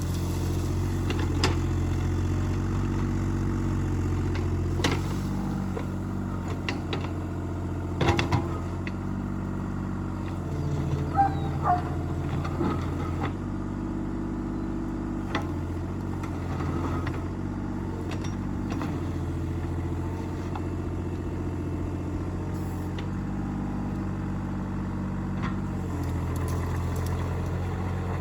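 Mini excavator engine running, its note shifting every few seconds as the machine works, with a few sharp knocks now and then.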